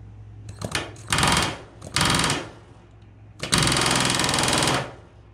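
Pneumatic rivet gun hammering solid rivets through the aluminium stabilizer skin into a stringer against a bucking bar: a couple of short taps, then two brief bursts about a second apart, then a longer burst of about a second and a quarter. A steady low hum runs underneath.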